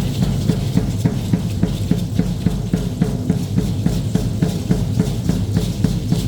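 Drumming for a traditional Mexican danza: a drum keeps a quick, even beat without pause.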